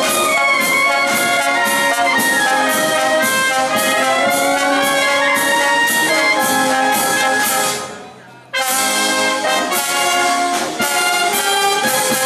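Street brass band playing, with trumpets, trombones, saxophones and tubas over a steady drum beat. Near eight seconds the music fades briefly, then the whole band comes back in together about half a second later.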